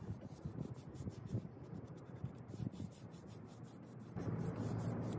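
Paintbrush bristles scratching and swishing across a dresser's wooden skirting as paint is brushed on, in uneven strokes. A steadier background noise comes up about four seconds in.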